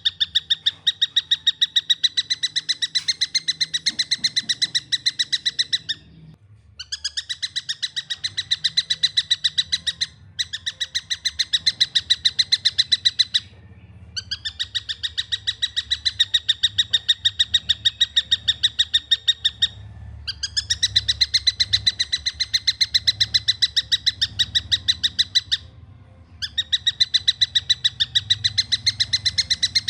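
Young tengkek buto kingfisher calling in rapid runs of clear, fast-repeated notes, about ten a second, each run lasting a few seconds with short breaks between.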